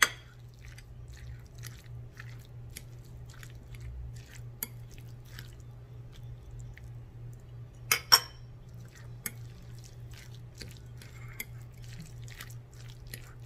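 A metal fork and spoon scraping and clinking against a glass bowl while stirring a wet, mayonnaise-dressed chicken salad, with two sharper clinks about eight seconds in. A steady low hum runs underneath.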